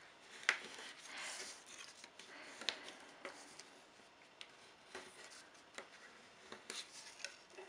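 A plastic ruler run along a folded sheet of origami paper to sharpen the crease: faint scraping and paper rustling, with a few sharp clicks and taps.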